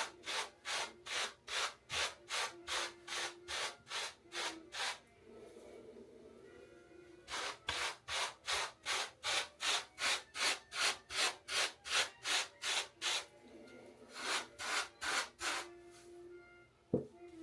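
A hair brush swept in quick, even strokes through short hair, about three scratchy strokes a second, in three runs with short pauses between. This is brushing 360 waves.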